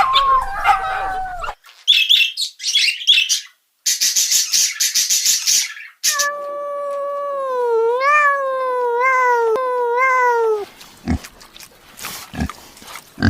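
A run of short, different animal calls one after another: a brief whine, a few high chirps, a dense high buzzing rasp, then one long wavering howl lasting about four and a half seconds, and low grunts near the end.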